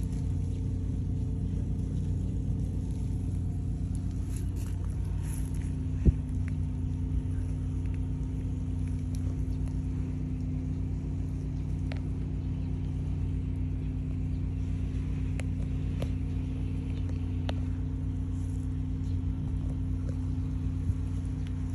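Steady low mechanical hum of a machine running at constant speed, with a further tone joining about five seconds in. Over it are a few light clicks and one sharp click about six seconds in.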